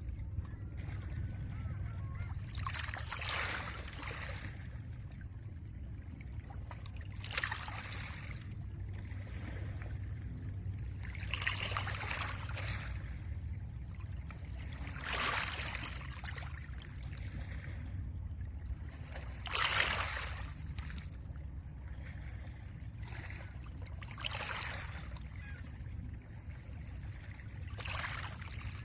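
Small lake waves washing onto a pebble beach, one about every four seconds, seven in all, each a short rush of water over stones. Underneath runs a steady low rumble of wind.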